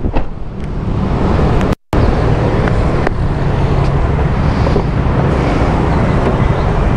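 Steady roar of street traffic mixed with wind buffeting the microphone. It drops out for a moment just under two seconds in.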